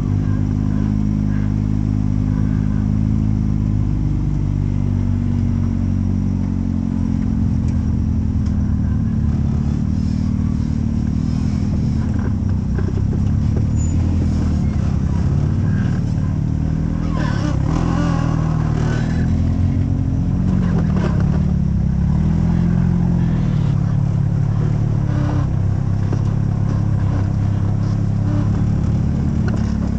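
Rock-crawler buggy engine running at low revs close by, its pitch rising and falling as it crawls, with a burst of clatter about halfway through.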